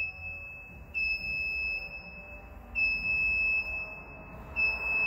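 Stratos SR40 scissor car lift's safety warning beeper sounding a long, high, steady beep about every two seconds, three times, as the lift lowers near the floor: the signal to keep feet clear of the closing scissors.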